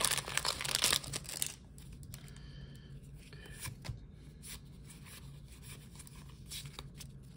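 Foil trading-card booster pack being torn open, a loud crinkling tear for about the first second and a half, then soft rustling and light clicks of the cards being handled.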